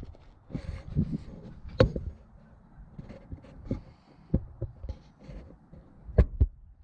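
Irregular knocks, clicks and dull thumps of things being handled, with the loudest thumps about two seconds in and again near the end.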